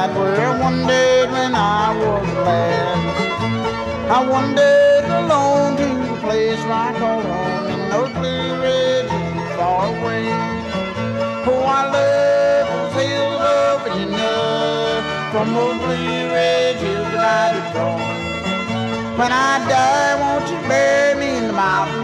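Bluegrass band playing, with banjo to the fore over fiddle, guitar, mandolin and upright bass keeping a steady beat.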